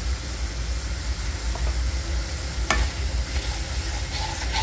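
Diced potatoes in poppy-seed paste sizzling steadily in oil in a non-stick pan, with a wooden spatula stirring and scraping against the pan. A few sharp knocks start a little past halfway and bunch up near the end.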